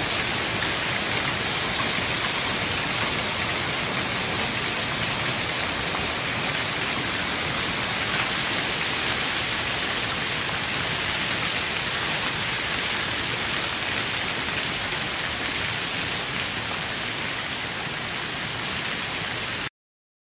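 Hail and heavy rain pelting paving and garden plants, a dense, steady hiss of countless impacts that cuts off abruptly near the end.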